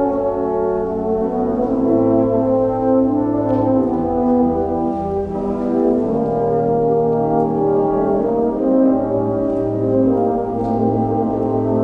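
Concert wind band playing slow, sustained chords, with brass such as horns and trombones prominent over held low bass notes. The chords change every second or two.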